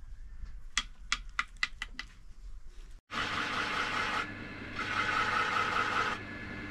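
A quick series of about seven sharp knocks, then, after an abrupt break, a motor-driven machine running with a steady hum and two stretches of louder rasping noise.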